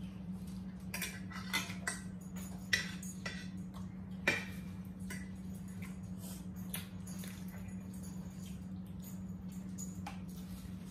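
Forks clinking and scraping on plates during a meal: scattered light clicks, the two sharpest about three and four seconds in, over a steady low hum.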